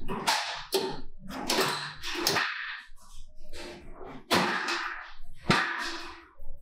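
Borescope cable rubbing and scraping in a hole drilled through a safe's steel door as it is pushed and twisted, giving repeated sharp swishes, one or two a second.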